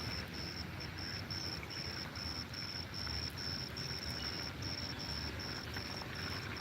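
An insect chirps in a steady high-pitched pulse about three times a second over a low, even rumble.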